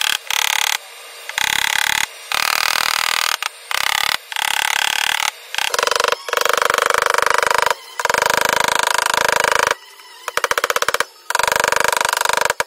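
Rapid hammer taps on the steel wheel-arch lip of a BMW 750i, folding the lip over to widen the wheel arch. The taps come in quick runs of about one to two seconds, with short pauses between.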